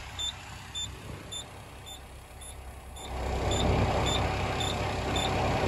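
Cummins diesel truck engine running while it warms up, freshly started after an oil change, with a short high beep repeating about twice a second. The engine rumble grows louder about three seconds in.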